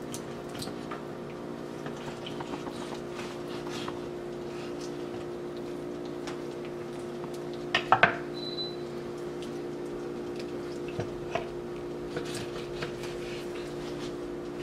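A knife cutting through raw chicken at the wing joints: small wet squelches and clicks of the blade against skin, bone and board, with a pair of sharp knocks about eight seconds in, over a steady low hum.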